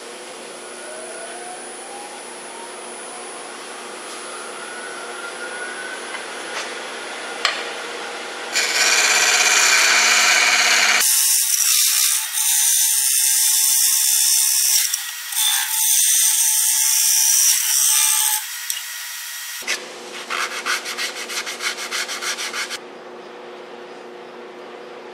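Grizzly wood lathe running with a motor whine that rises in pitch over the first few seconds, then a hand-held hollowing tool (the Beaver) cutting the inside of the spinning walnut-and-resin segmented bowl: loud scraping for about ten seconds, then a run of rapid ticking chatter before the cutting stops and only the machine hum is left.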